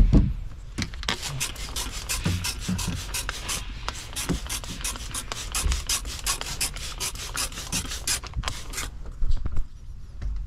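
Hand trigger spray bottle spraying liquid onto window glass, many quick hissing sprays in rapid succession that stop about nine seconds in.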